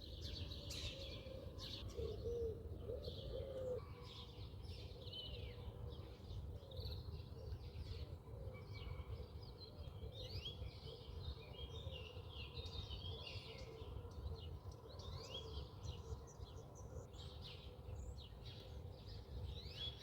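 Many small birds chirping and twittering continuously over a steady low background rumble, with a few lower cooing calls about two to four seconds in.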